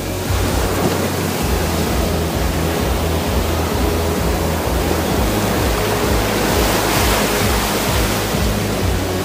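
Sea surf: waves breaking and washing in, a steady loud rushing noise, with background music playing underneath.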